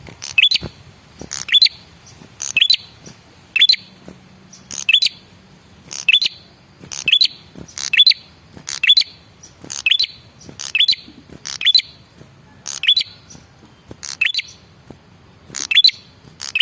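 Male red-headed prenjak, a tailorbird, calling: a short sharp call repeated about once a second, each a quick clipped note pair.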